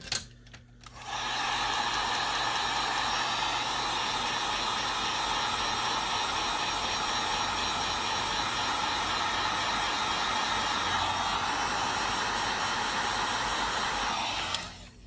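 Electric hot-air blower switched on about a second in, blowing steadily, then switched off just before the end. It is heating the phone's charging-port board to soften the adhesive holding it down.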